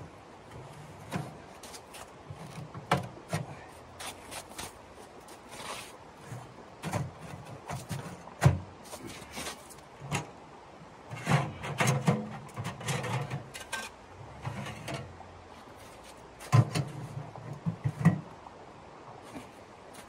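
Portable sheet-metal tent wood stove being put together by hand: irregular metal clanks, knocks and scrapes as its legs and chimney pipe are fitted, with a couple of sharp knocks standing out.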